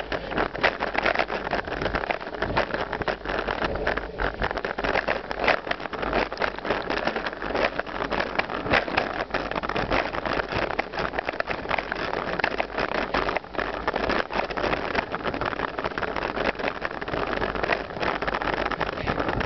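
Mountain bike riding down a dirt forest trail: a steady noise of wind and tyres on dirt, broken by many small knocks and rattles as the bike goes over bumps.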